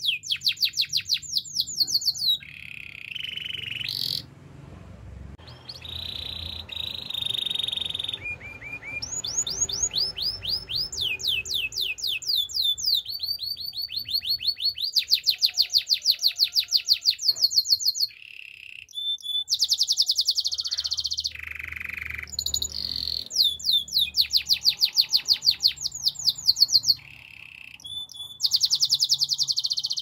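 Domestic canary singing a long, continuous song: rolls of rapidly repeated high notes alternating with lower held notes, broken by a few brief pauses.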